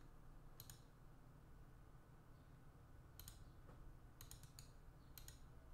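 Near silence with faint computer mouse clicks: a pair about half a second in, then several more in small groups between about three and five and a half seconds in, over a low room hum.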